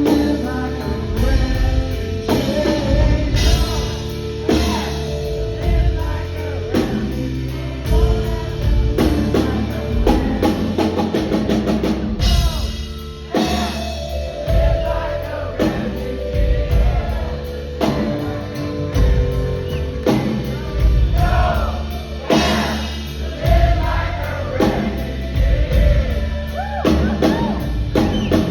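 Live rock band playing loudly: drum kit, bass and electric guitars, with singing over the top, heard from the audience.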